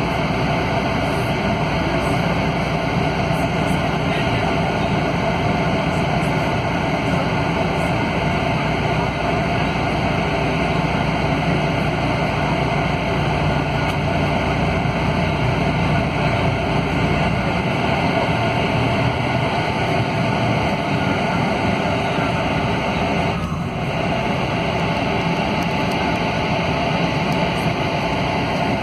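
Steady drone heard inside the passenger cabin of a Scania K440IB double-decker coach, its DC13 six-cylinder diesel running as the bus slows to a stop and then stands.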